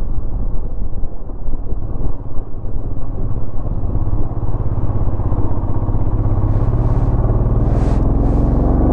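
Motorcycle engine running while the bike is ridden, a steady low drone whose pitch rises over the last few seconds as the bike speeds up.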